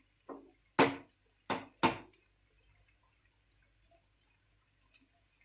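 Metal spatula knocking against a frying pan while stirring a thick masala: four sharp clicks within about two seconds, the first one faint.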